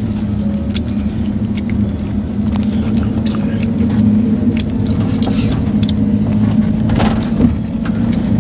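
Steady low drone of a van's engine and road noise heard from inside the cabin, with scattered light clicks and crinkles from a paper food wrapper being handled.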